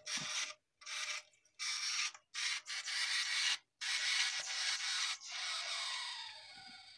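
Homemade candle-heated pop-pop steam boat's nozzle sputtering at the waterline in irregular spurts of hiss, some under a second and the longest over a second. Near the end the spurts give way to a fainter, steadier hiss.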